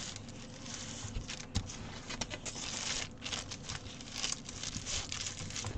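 Rustling and crinkling of a paper chart and cross-stitch canvas being lifted and handled, with scattered small ticks.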